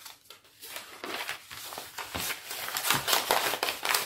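Packaging crinkling and rustling in quick, irregular crackles as the contents of a diamond painting kit are handled, getting louder and busier from about a second in.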